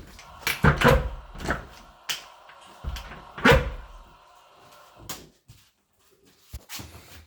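Cupboard or room doors being opened and shut: a run of knocks and clunks, several close together in the first few seconds, then fewer and softer near the end.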